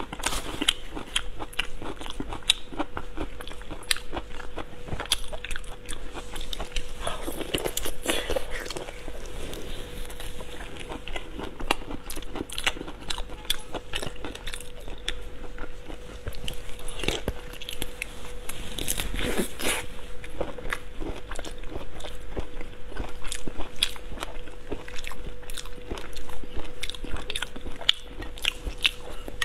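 A person chewing and biting food close to a lapel microphone, with many sharp crunches and wet clicks throughout. A faint steady hum sits underneath.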